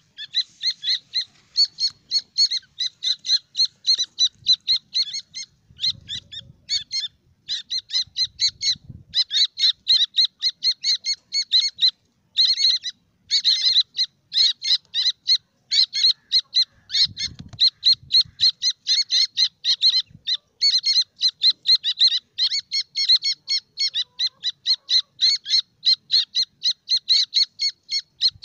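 A brood of francolin chicks peeping: a steady run of short, high-pitched peeps, several a second, with hardly a pause. A few faint low thumps come and go underneath.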